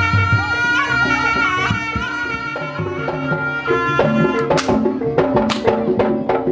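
Kuda kepang ensemble music: a held, wavering melody line, then from about four seconds in, a quick run of drum and ringing metal percussion strikes.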